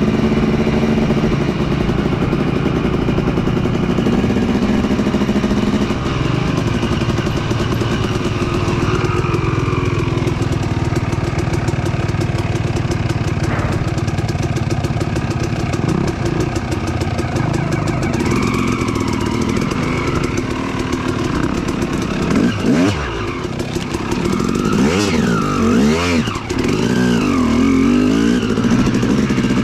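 Dirt bike engine running under way on a trail, the throttle opening and closing. Several quick revs rise and fall near the end.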